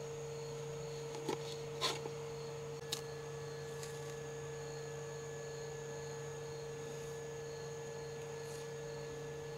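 Quiet night-time campsite ambience: a steady hum under a faint, high insect chirp that pulses about twice a second. There are a few light clicks in the first three seconds.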